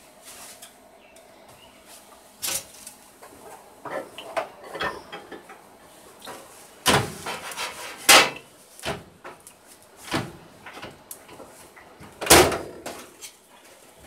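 Scattered knocks and clunks of a small dish being handled with a pot holder and set on the counter, then a microwave door being shut with a loud knock a little past twelve seconds in.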